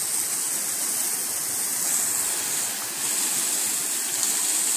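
Garden hose spray nozzle shooting a steady jet of water across a pool-cage screen roof, blasting leaves off it: a continuous hiss and spatter of water on the screen, easing slightly about three seconds in.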